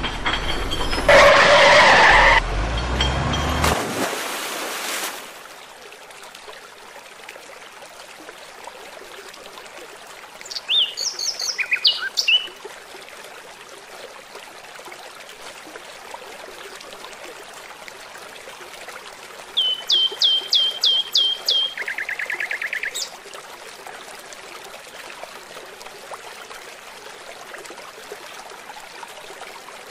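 River water rushing steadily over rocks, with a bird calling twice: first a short run of quick chirps, then a rapid series of rising notes ending in a brief trill. A loud noisy stretch fills the first few seconds.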